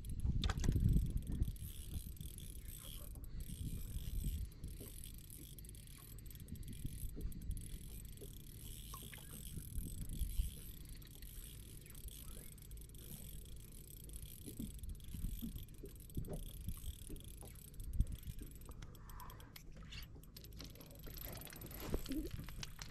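Spinning reel being cranked, winding in a sabiki rig with horse mackerel on the hooks, its gears giving soft repeated clicks over a steady low rumble of wind on the microphone.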